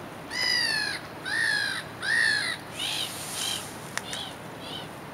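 Gulls calling: three loud, drawn-out screeching calls in quick succession, then several shorter, fainter calls. A single sharp click about four seconds in.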